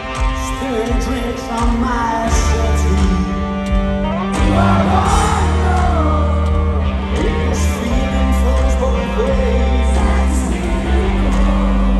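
Rock band playing live, with a singing voice over a steady bass and guitar. Bright cymbal strokes recur every couple of seconds.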